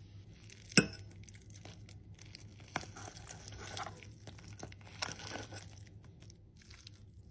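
A fork tearing and scraping through a crisp-fried vegan patty on a metal plate, with crackly shredding sounds and small clicks. There is a sharp knock of metal on the plate about a second in, and a low steady hum underneath.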